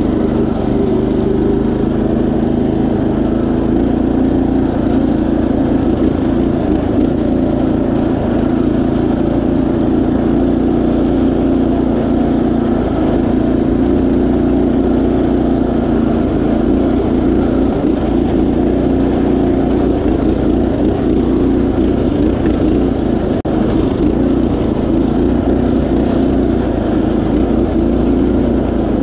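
Predator 212 single-cylinder four-stroke engine on a Craftsman GT5000 garden tractor, running steadily under load as the tractor drives along a trail.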